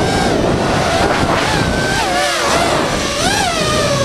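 Small FPV quadcopter's electric motors whining, the pitch sweeping up and down as the throttle changes, over a steady rushing noise. The whine dips and breaks up around the middle, then climbs sharply a little after three seconds in.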